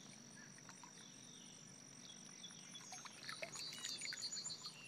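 Faint outdoor ambience: a steady high-pitched insect drone, with scattered bird chirps and a quick run of repeated chirps about three seconds in.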